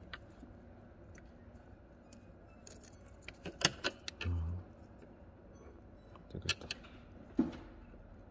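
Small plastic clicks and rattles as a wiring connector and its clip are worked loose from the Cupra Formentor's door panel harness, in two clusters: about three seconds in and again near the end.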